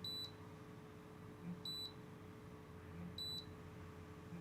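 Air conditioner's indoor unit beeping to confirm infrared commands as they arrive: a short, high single-pitch beep about every second and a half, three times, each just after a soft tap.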